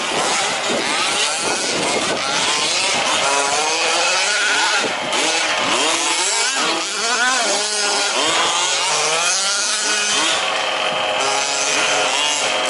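Several 1/5th-scale petrol RC trucks' small two-stroke engines revving, their pitches rising and falling over one another as the trucks accelerate and brake around the track.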